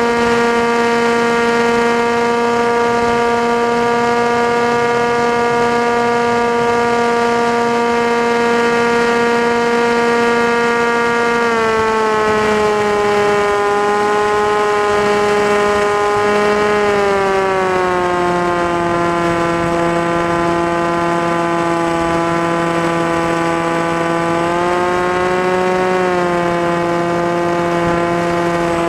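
Motor of an FPV aircraft whining at a steady pitch, dropping in two steps about a third and halfway through as the throttle comes back, then rising again near the end.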